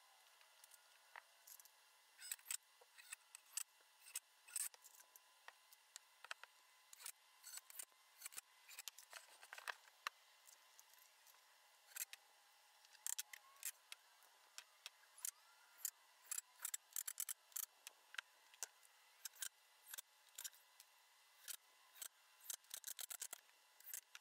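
Faint, irregular sharp clicks and ticks over a low hiss, thin-sounding with no low end.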